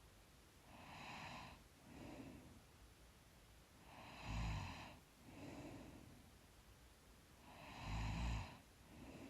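Slow, deep breathing of a woman asleep, one breath about every three and a half seconds, each inhale followed by a softer exhale. A light snore rattles on the inhale twice, about four and eight seconds in.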